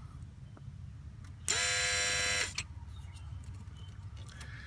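A 2003 Volvo S60 2.5T's engine idling with a steady low hum, with a loud buzz about halfway through: one steady pitched tone with many overtones that lasts about a second and stops abruptly. The owners feel a hose, which they take for a coolant line, vibrate when the buzz sounds.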